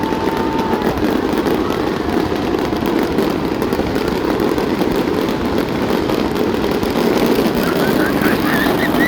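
Dense, steady hubbub of a large crowd of spectators, with a few short whistle-like sounds near the end.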